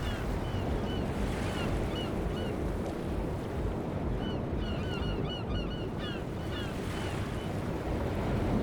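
Surf and wind ambience with many short bird chirps over it, busiest around the middle.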